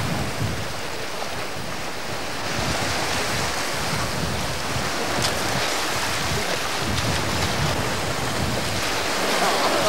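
Surf washing onto a sandy beach, with wind on the microphone.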